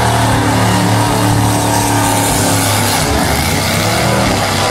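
Engine of a drag-racing wheelie school bus running loud and steady at high power.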